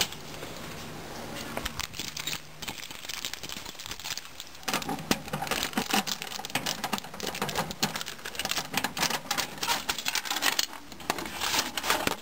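Bunch of keys jangling and clicking in the lock of a metal letterbox, with the box rattling as it is opened. From about five seconds in comes a dense run of sharp clicks and rattles.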